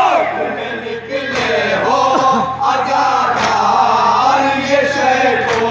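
A group of men chanting together in unison, amplified through a microphone and loudspeaker, over a steady electrical hum, with a few sharp knocks.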